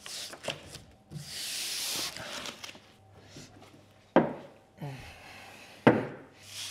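Vinyl wrap film rustling and rubbing as it is peeled from its backing by gloved hands, with two sharp thumps about four and six seconds in.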